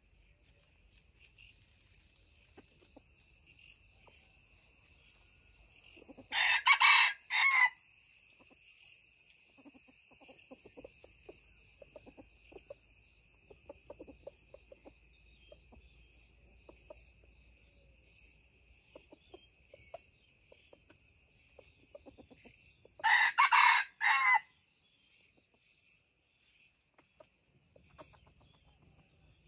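Red junglefowl rooster crowing twice, each a short crow of about a second and a half, far apart. A steady high chirring of insects runs beneath.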